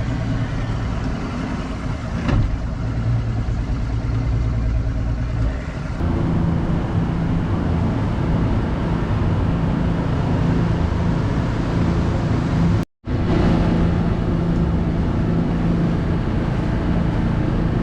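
A fishing boat's engine running steadily under way, a low rumble whose pitch shifts to a new steady note about six seconds in. The sound cuts out for a split second near the end, then the engine rumble resumes.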